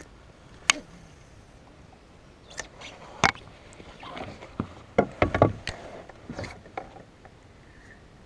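Scattered clicks and knocks from a spinning rod and reel being handled in an aluminum boat. The sharpest knock comes about three seconds in, and a cluster of them follows around five seconds in.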